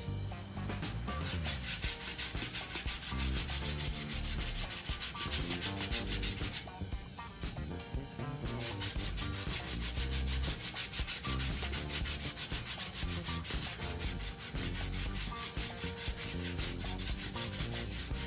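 Bondo body filler on a fiberglass box being sanded with worn 80-grit sandpaper, in quick, even back-and-forth strokes. The strokes stop for about two seconds near the middle, then start again.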